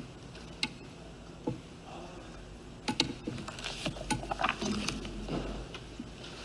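Quiet hall room tone with scattered light clicks and knocks of handling noise at a podium microphone, most of them bunched from about three to five seconds in.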